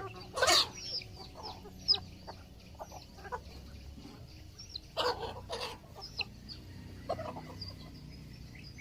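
Village chickens clucking, with loud short calls about half a second in and again about five seconds in, and many brief high chirps throughout.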